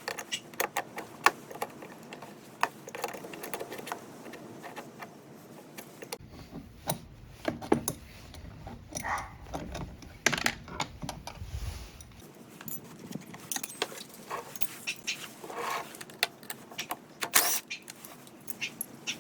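Metal hand tools and hardware clinking and rattling in irregular sharp clicks, as the blade bolts on the snow blower are worked on. A low rumble joins in for a few seconds in the middle.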